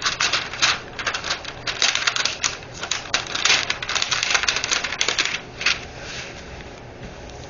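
Crackling and crinkling of a rolled diamond painting canvas and its plastic cover film being handled and flattened out, in quick irregular crackles that ease off about five and a half seconds in.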